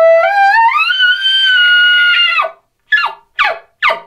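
Elk bugle blown through a long corrugated bugle tube: one high whistle that rises about a second in and is held, cutting off after about two and a half seconds, then three short falling chuckles.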